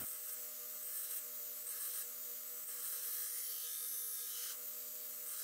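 Belt grinder grinding the narrow bevels of a damascus steel blade: a steady hiss of the abrasive belt on steel, with a faint motor hum underneath.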